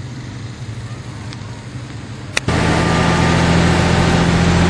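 A low rumble, then a sharp click about two and a half seconds in, after which the sound jumps louder to a bus engine's steady hum heard from inside the passenger cabin.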